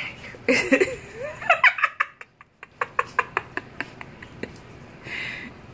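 A Pomeranian chewing and pawing at a thong on a tile floor: a brief wavering, whine-like pitched sound about half a second in, then a run of sharp clicks, about three a second, as it worries the fabric.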